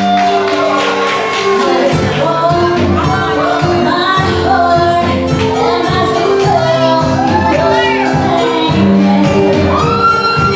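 Live band playing a pop ballad: a woman sings lead into a microphone over keyboard, electric guitar and drum kit. The drums and low end come in about two seconds in.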